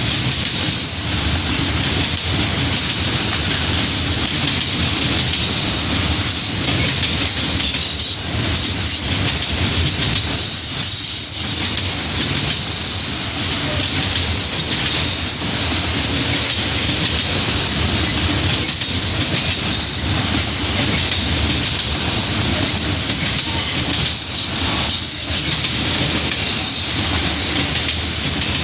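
Freight train cars rolling past at close range: a steady loud rumble of wheels on rail with a faint, steady high-pitched wheel squeal over it.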